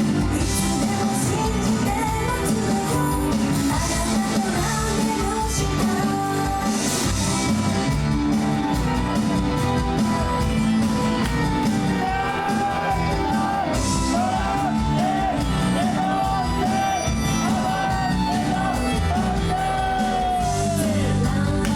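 Live J-pop idol performance in a concert hall: a loud backing track with guitar and drums under female singing, with a held, wavering vocal line in the second half.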